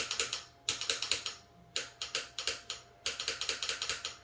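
Runs of small, rapid metallic clicks, in about four bursts, from an AR-15-pattern rifle's fire-control parts (safety selector and trigger) being worked during a safe/fire function check.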